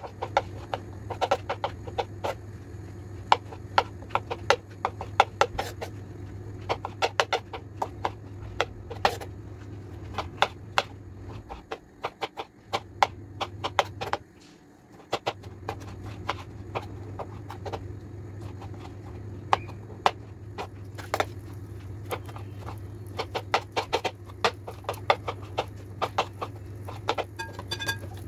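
Kitchen knife dicing peeled tomatoes on a plastic cutting board: quick, irregular taps of the blade striking the board, in runs with short breaks and a pause of a couple of seconds near the middle. A steady low hum runs underneath.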